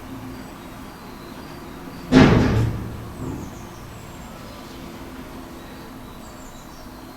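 A single sudden thump about two seconds in, dying away within about half a second, over a steady background with a few faint high bird chirps.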